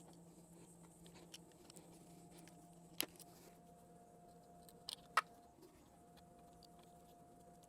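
A few sharp light clicks and taps from hand work on small parts and tools: a single click about 3 seconds in and a quick pair then a louder click about 5 seconds in, over a faint steady hum.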